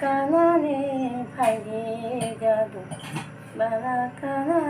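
A woman singing a melody, with long held notes that bend in pitch, phrase after phrase.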